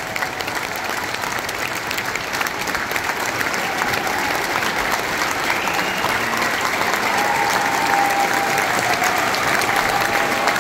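A large audience applauding steadily, many hands clapping at once, growing a little louder through the stretch.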